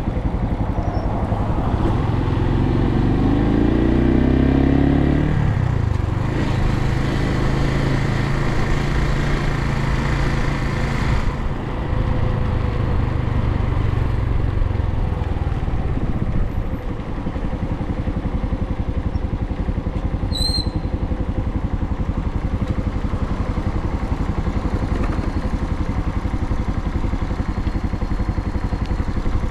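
Suzuki TU250x's single-cylinder air-cooled engine under way on the road. Its revs rise for a few seconds, then it runs steadily, with a hiss for several seconds in the middle and a lower, steadier engine note later on.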